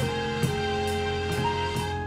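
Electronic keyboard playing held chords and a slow melody that steps up to a higher note about a second and a half in, over a programmed beat with a steady bass and a light tick about twice a second.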